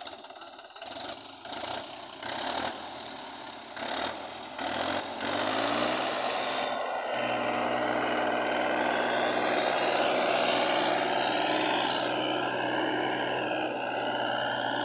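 Mahindra 275 DI tractor's three-cylinder diesel engine working hard under load, pulling a sand-laden trolley out of soft sand ruts. It comes in uneven surges for the first few seconds, then rises in pitch and holds steady at high revs.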